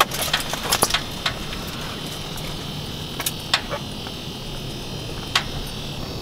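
Small sharp clicks and taps from handling an ice-fishing rod, reel and tackle, a quick cluster at the start and then single clicks every second or two, over a steady low hum and faint high hiss.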